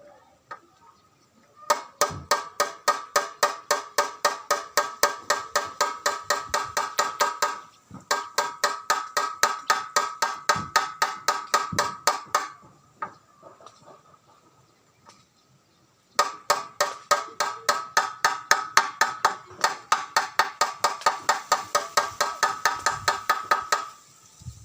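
Rapid hammering on metal: steady ringing strikes at about four or five a second, in three long runs broken by short pauses.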